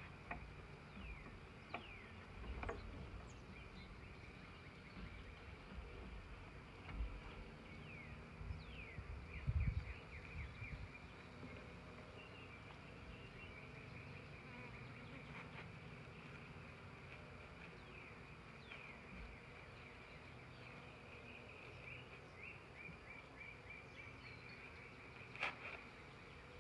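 Honey bees buzzing as they fly close past, their drones gliding up and down in pitch as each one passes. A low bump about ten seconds in, and a sharp click near the end.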